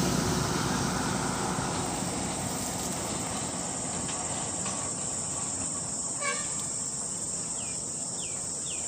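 Steady high-pitched insect chorus of crickets or cicadas, with three short falling chirps near the end.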